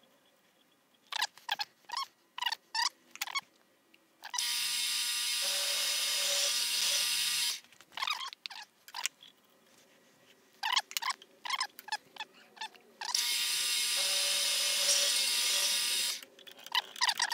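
Vertical milling machine running in two bursts of about three seconds each, starting and stopping abruptly, with an end mill cutting wrench flats on a spindle. Quick runs of sharp clicks come between the bursts.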